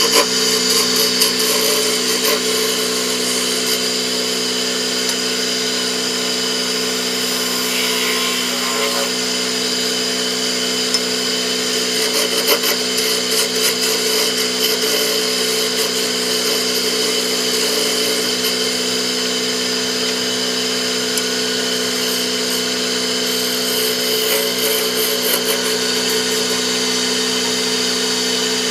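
Wood lathe running steadily, its motor humming while a turning tool cuts the spinning wood of a knife handle with a continuous hissing scrape.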